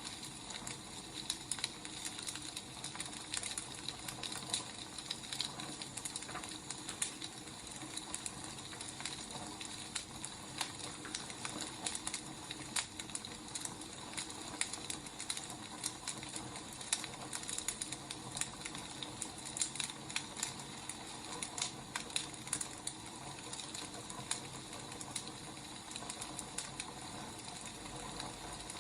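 Wood fire burning: irregular crackles and pops of the firewood over a steady hiss.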